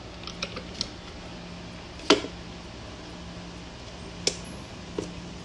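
A few scattered sharp clicks and taps over a steady low hum. The loudest tap comes about two seconds in.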